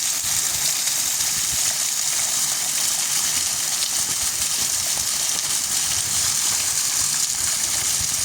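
Small waterfall spout pouring steadily, an even rushing hiss of falling water with no break.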